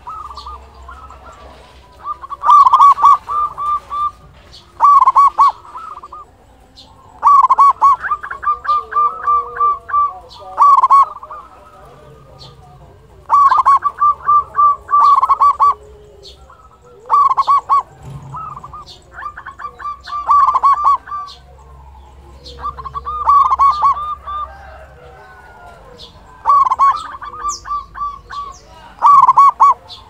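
Zebra dove (perkutut) singing its big-voiced cooing song: phrases of quick, clipped coos, repeated about every two to three seconds.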